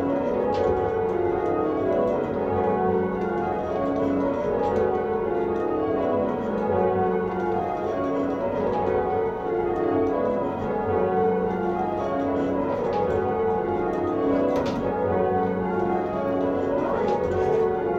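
Church tower bells rung full circle by ringers on ropes, heard from the ringing chamber below: a continuous sequence of overlapping bell strikes, each run stepping down in pitch from the highest bell to the lowest and repeating every two to three seconds.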